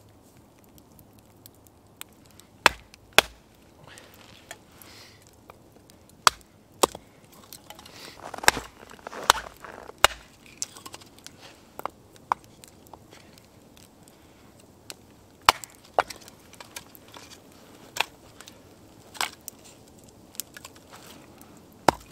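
Hatchet splitting firewood into kindling on a log: a series of sharp, irregularly spaced chopping strikes into wood, some seconds apart.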